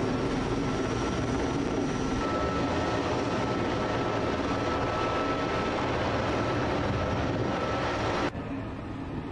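Heavy-lift helicopter flying with a generator slung beneath it: a steady rotor and turbine drone with a thin high whine. Near the end the sound drops and turns duller.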